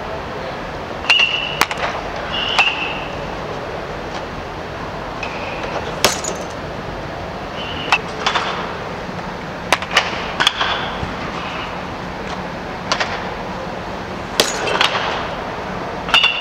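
About a dozen irregular, sharp metallic pings and clanks, several with a brief ringing tone, echoing through an inflated indoor sports dome over a steady low hum.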